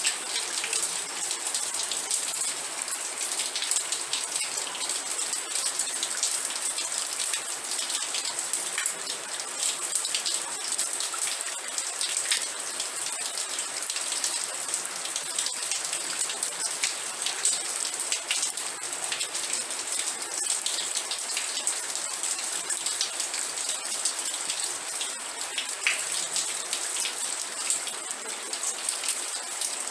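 Steady heavy rain with dense, close drops pattering on a surface, a constant hiss.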